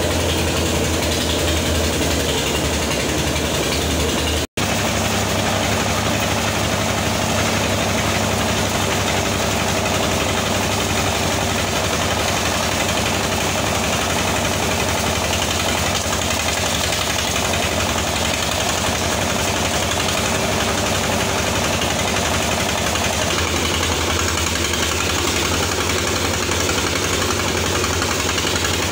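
Engine-driven rice threshing machine running steadily: the engine's low, even hum under the dense whirring noise of the threshing drum as paddy bundles are fed in.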